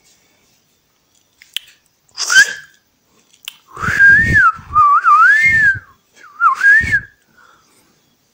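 A person whistling: a short rising whistle, then two longer phrases of a wavering, up-and-down whistled tone, with breath noise on the microphone.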